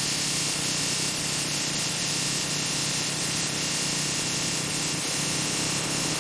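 Industrial sawmill saw cutting through a log: a steady, hissing machine noise that does not let up.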